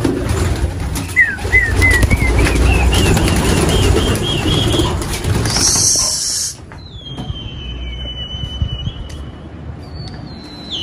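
A flock of domestic pigeons taking off from a loft, many wings flapping and clattering at once, with a string of short rising chirps over it. The flapping is loud for about six seconds, then drops away as the birds get clear.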